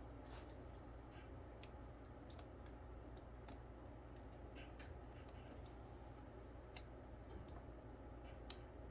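Faint, irregular small clicks and taps of laptop parts being handled and fitted into the plastic chassis during a cooling fan replacement, over a low steady hum.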